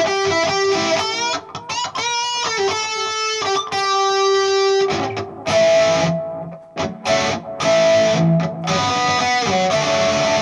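Telecaster electric guitar played through an amp: held single notes with string bends, then from about five seconds in a denser, noisier passage of sustained notes.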